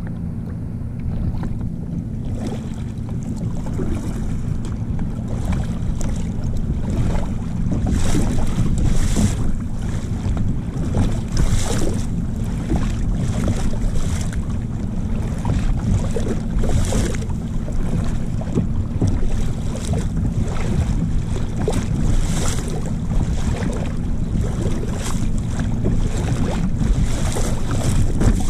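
Wind buffeting the microphone in a steady low rumble, with small waves lapping and splashing close to the camera every second or few seconds.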